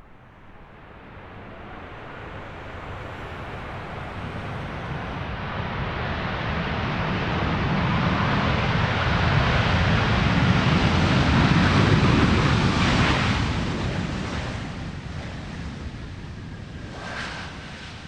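Airbus A330 jet airliner on landing approach passing the observer: a broad engine and airflow noise that builds steadily to a peak about two-thirds of the way through, then fades, with a steady high whine coming in near the end.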